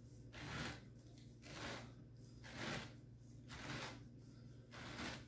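Hand-held rotary pineapple corer-slicer turning down through the flesh of a pineapple, giving a faint rasping scrape that comes back about once a second, once with each turn of the handle.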